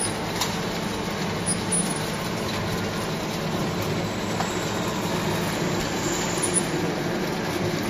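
Wave soldering machine running: a steady mechanical hum and hiss, with a faint click about half a second in.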